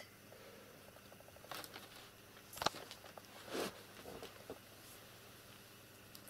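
Faint scattered rustling and light taps of kittens moving about on a rug and among cardboard boxes, with one sharper tap a little before halfway.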